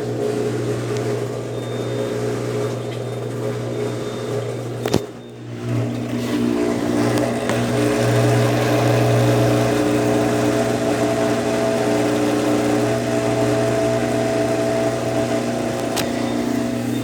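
Consul Facilite 10 kg CWC10 washing machine running with a steady motor hum. About five seconds in there is a click and a brief drop, then the hum resumes with a stronger whine.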